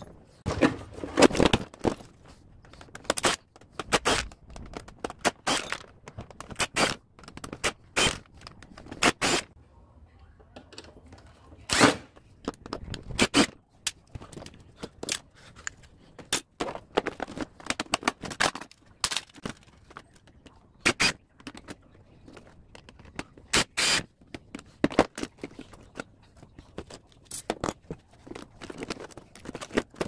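Hard plastic housing and parts of an LG dehumidifier knocking, clicking and scraping as it is taken apart by hand. The sharp knocks come at irregular intervals, with scraping in between.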